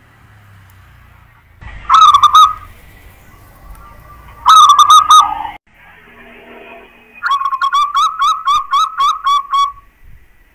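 Zebra dove (perkutut) cooing, in three phrases: two short ones about two and four and a half seconds in, then a longer run of about ten quick rolling notes near the end.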